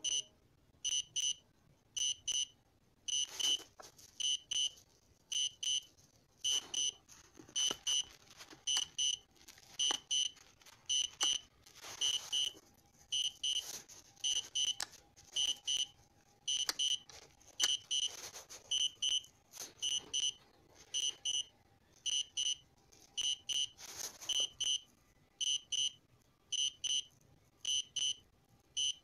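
Electronic double beep repeating about once a second, a high thin tone, with faint handling clicks and rustles in between.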